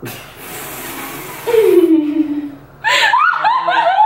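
Effortful vocal sounds during a partner yoga lift: a breathy rush of air, then a falling groan, then a burst of high-pitched laughter in the last second or so.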